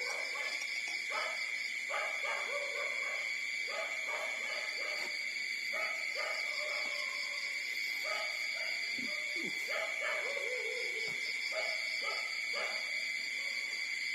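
Young puppies whining and squeaking in short, repeated cries while nursing from their mother, some cries gliding down in pitch, over a steady high-pitched drone.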